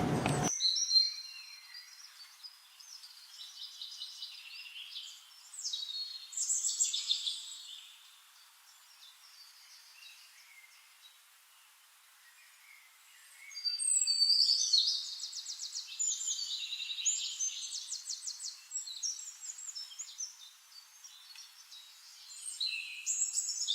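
Small songbirds chirping and trilling in high, quick phrases, with a quieter lull in the middle and busier chirping in the second half.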